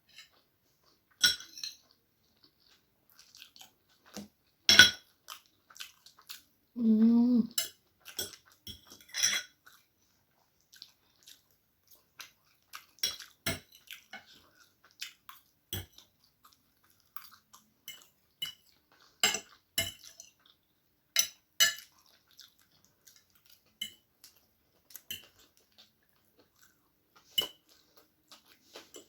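Cutlery clicking and scraping against a plate of chow mein noodles, in irregular, scattered clicks and knocks. A short low hum, like a voice, comes about seven seconds in.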